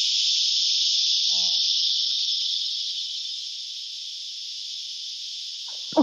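Loud, steady high-pitched drone of a cicada chorus, easing down in level after about two and a half seconds. A sharp knock comes right at the end.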